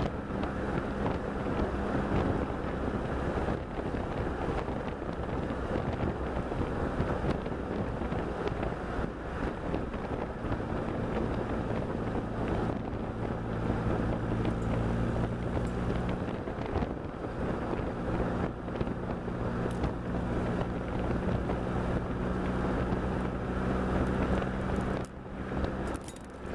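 Sports car driving at road speed: the engine runs steadily under heavy wind noise on the microphone, and its note drops and rises again partway through.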